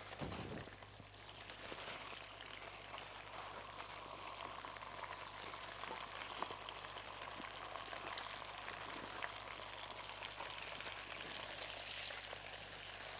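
Ribeye steak sizzling in butter and oil in a frying pan: a steady hiss dotted with small pops of spattering fat. The steak is nearly cooked.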